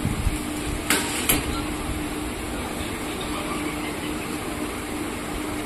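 Continuous band sealer running with a steady hum as a pouch passes through, with two sharp clicks about a second in.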